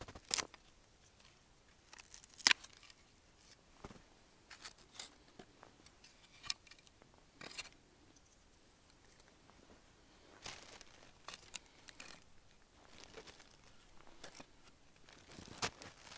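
Split firewood pieces being set down and leaned together by hand, giving scattered light wooden knocks with scraping and rustling between them.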